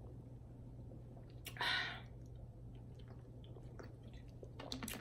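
Close-miked eating: food being chewed with small wet mouth clicks, and one short hissing breath-like noise about a second and a half in.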